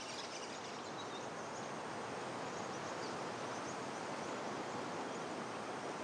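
Steady outdoor bush ambience: an even, quiet hiss of air through the eucalyptus forest, with a faint high chirp about a second in.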